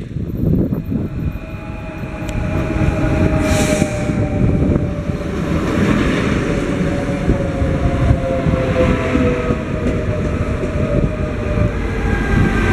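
CFL Class 2200 double-deck electric multiple unit passing close by: a loud, continuous rumble of wheels on rails, with several whining tones that fall slowly in pitch as it goes past.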